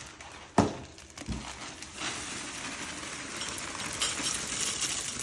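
A sharp knock about half a second in, then Frosted Flakes poured from their plastic liner bag rattle steadily into a ceramic bowl against a metal spoon, with the bag crinkling.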